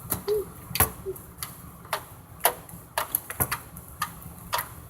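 Homemade glue-and-detergent slime being kneaded and squeezed by hand, giving a sharp click or pop roughly every half second, irregularly spaced.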